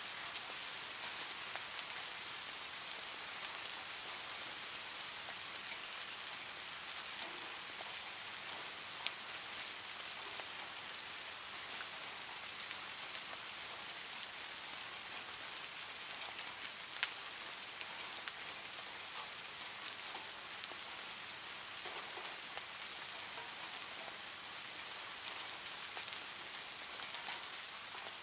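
Steady rain, an even hiss of falling drops with scattered small ticks of drops striking a surface, and two sharper single drop hits about nine and seventeen seconds in.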